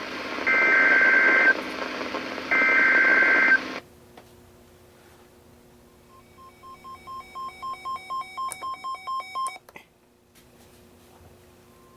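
NOAA Weather Radio SAME alert header: two one-second bursts of buzzy two-tone data, about a second apart. Then, after a few seconds of faint hum, a weather alert receiver's own alarm beeps rapidly, about three beeps a second, getting louder and cutting off near the tenth second.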